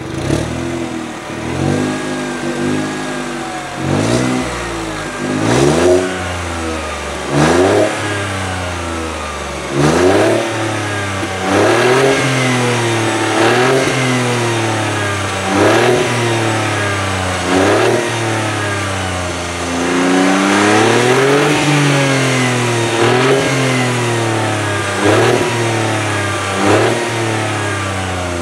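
2014 Mini One's 1.2-litre turbocharged three-cylinder engine free-revving while stationary, heard at the exhaust tailpipe. About a dozen quick throttle blips rise sharply and fall back to idle every couple of seconds, with one longer, slower rev about two-thirds of the way through.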